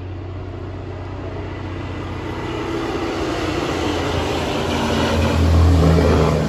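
Coal truck approaching and passing close by: low engine drone and tyre noise grow steadily louder and are loudest near the end.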